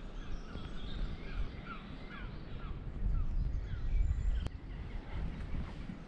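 Small birds calling and singing in short, quick chirping notes, over a low, uneven rumble. A single sharp click comes about four and a half seconds in.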